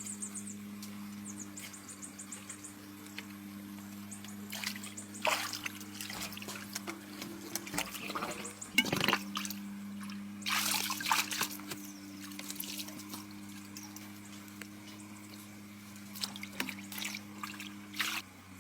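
Water splashing and trickling in irregular spurts, loudest around the middle, over a steady low hum.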